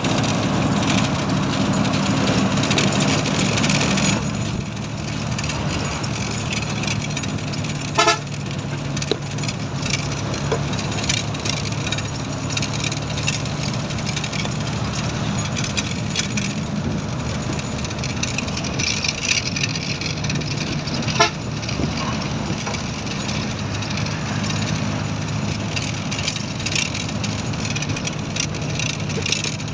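Steady engine drone and road noise of a moving motor vehicle heard from on board. A horn toots briefly twice, about eight seconds in and again about twenty-one seconds in.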